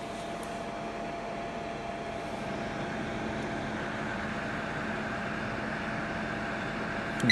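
Electric hot-air blower running steadily with a motor hum and a rushing hiss, used to warm a frozen engine block.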